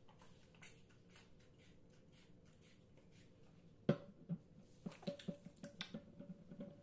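Handling noises of a hair-product bottle and hands in damp hair: faint small clicks, a sharp knock about four seconds in, then a quick run of soft taps and rustles as product is worked into the hair.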